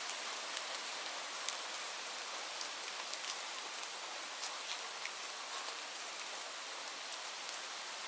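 Steady rain falling on leaves: an even hiss with scattered single drops ticking through it.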